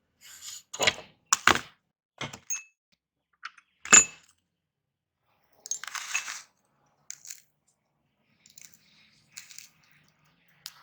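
A series of separate sharp clinks and clatters of hard objects being handled, the loudest about four seconds in with a brief ring, then fainter ticks toward the end.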